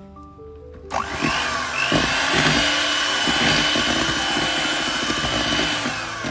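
Electric hand mixer running at speed with a steady motor whine, beating cake batter. It starts about a second in and cuts off suddenly at the end, over soft background music.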